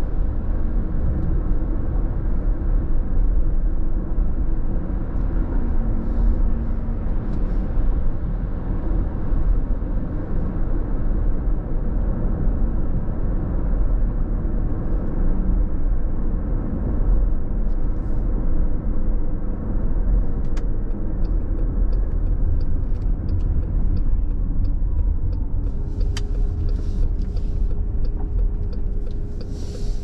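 Cabin sound of a 2020 Chrysler Pacifica Hybrid driving: a steady low road rumble with the hum of its hybrid drivetrain. In the last third a regular ticking joins in, and near the end a steady whine sets in.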